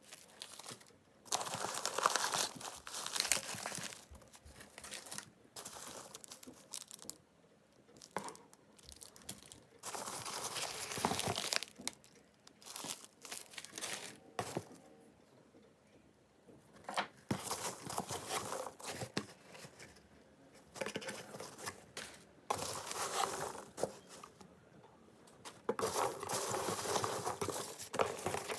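Hands rummaging through a box of starch packing peanuts and handling crinkly brown paper product bags and paper. The rustling and crinkling comes in irregular bursts with short quieter pauses.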